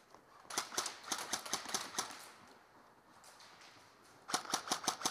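Airsoft guns firing rapid shots, about six a second: a burst of sharp clicks and pops lasting about a second and a half starting half a second in, and a shorter burst near the end.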